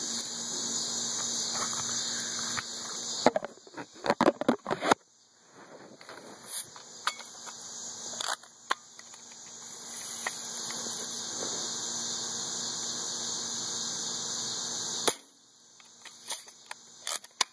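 BB gun shooting and being handled: a sharp snap about three seconds in, then a quick cluster of clicks, a few scattered clicks, and another sharp snap about fifteen seconds in followed by more clicks. A steady high chirring of insects runs underneath.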